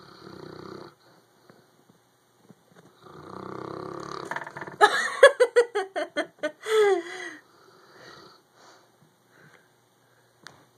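Sleeping Neapolitan mastiff snoring, then a quick run of about ten short yips, each falling in pitch, ending in one longer falling whimper: dream vocalising in its sleep.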